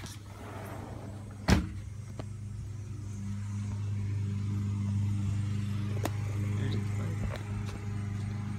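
A motor running steadily with a low hum that grows a little louder partway through, with one sharp knock about a second and a half in.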